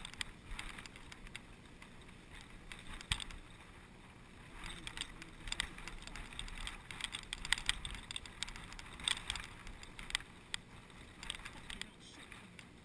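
Wind-blown grass brushing against the microphone: faint, irregular rustling and crackling.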